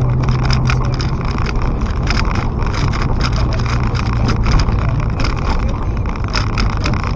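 Inside the cabin of a car driving over a rough road: the engine runs with a steady low hum under constant tyre and road noise, with frequent short rattles and clicks as the car jolts over the uneven surface.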